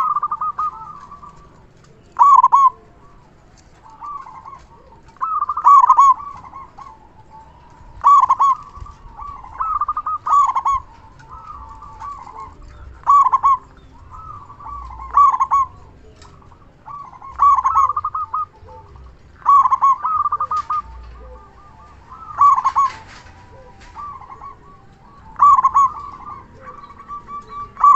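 Local zebra dove (perkutut) cooing loudly: its rapid, stuttering coo phrase repeats about every two to three seconds, a dozen times, with quieter coos in between.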